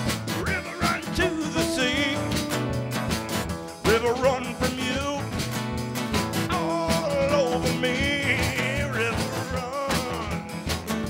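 Live blues-rock band playing an instrumental passage: tenor saxophone lead over strummed acoustic guitar and a drum-kit beat. The saxophone comes in loudly about four seconds in with a rising scoop, then plays bending, wavering phrases.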